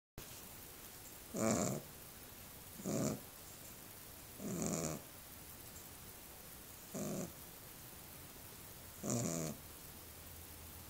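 Small dog snoring: five rough snores, about two seconds apart, each with a breathy hiss.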